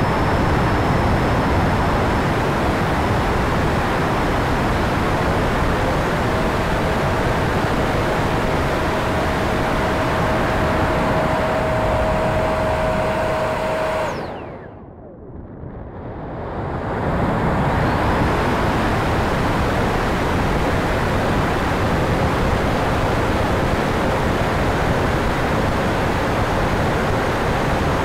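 Steady rushing air noise and ducted-fan whine from an E-flite Viper 70mm EDF jet in flight, recorded onboard. A thin steady tone sits over the rush for several seconds. About halfway through, the sound drops away and thins out for two or three seconds, then builds back to full.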